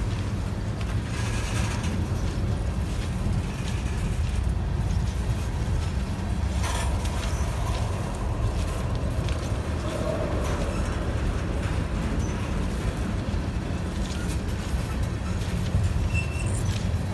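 CSX freight train moving in a rail yard: a steady low rumble.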